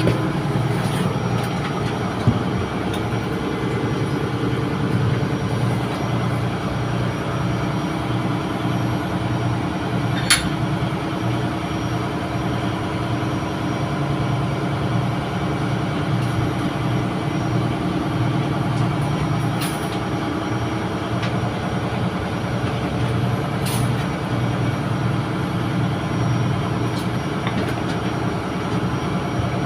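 Steady drone of running ship's engine-room machinery, with a few short sharp clicks or taps, the loudest about ten seconds in.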